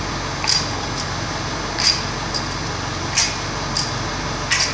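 Short clicking strokes of a hand ratchet, about five in a few seconds and unevenly spaced, as the already-loosened front pump bolts of an E4OD transmission are backed out, over a steady fan-like hum.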